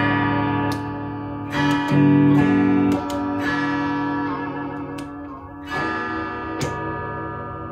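Freshly strung Firebird-style electric guitar, played amplified: several chords are strummed and left to ring out, a few seconds apart. This is a test of the pickup balance right after the neck pickup has been lowered.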